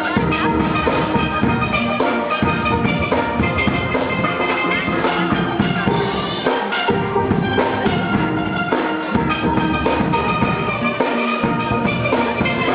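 Steel band playing live: steel pans carrying the tune over a steady drum kit beat.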